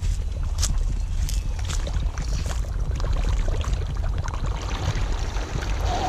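Paddle tires of a Losi Super Rock Rey RC truck churning through pond water with uneven splashing over a steady low wind rumble on the microphone. The splashing grows into a louder spray near the end.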